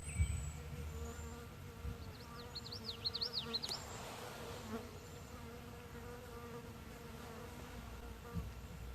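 A flying insect buzzing steadily, with a bird's quick series of twittering chirps about three seconds in.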